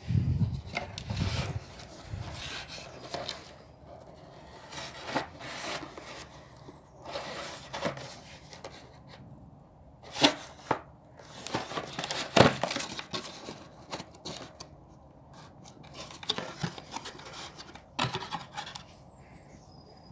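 A cardboard box being handled and opened by hand: irregular rubbing, scraping and tapping of cardboard, with a few sharper knocks about ten and twelve seconds in.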